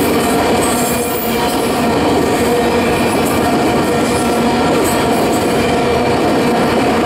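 Freight train's enclosed autorack cars rolling past: a steady rumble and rattle of steel wheels on the rails, with brief high squeals near the start and again about five seconds in.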